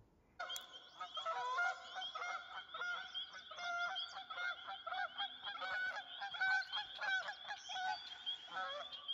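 Geese honking over and over at a marsh, many calls overlapping, starting suddenly about half a second in. A steady high-pitched trill runs underneath.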